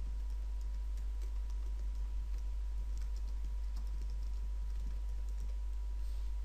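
Typing on a computer keyboard: light, irregular keystrokes, over a steady low electrical hum.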